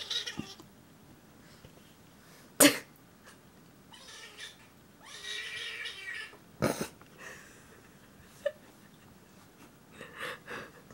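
A cat squealing, unhappy after being given ear medication: several high, strained cries, the longest about a second, around five seconds in, with more near the end. Short, sharp noises break in between, the loudest just under three seconds in.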